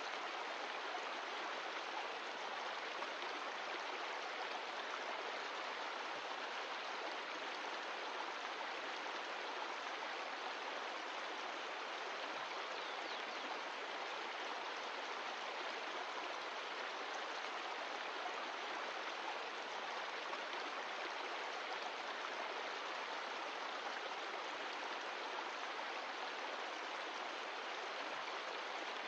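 Mountain stream of glacial meltwater running: a steady, even wash of flowing water.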